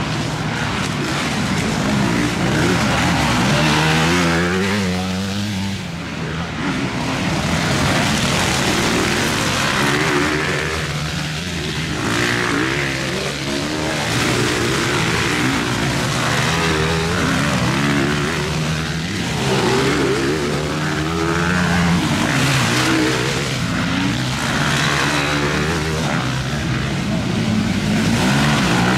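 Several motocross dirt bikes racing, their engines revving up and down and overlapping with one another as they come through the track.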